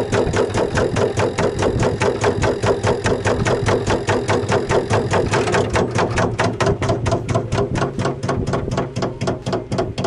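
Hand-cranked honey extractor spinning, its mechanism clicking rapidly and evenly as the crank is turned. The centrifuge is flinging honey out of the uncapped frames onto the drum wall.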